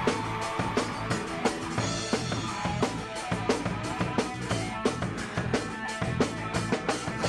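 Music with a steady drum-kit beat: kick and snare hits under pitched instruments.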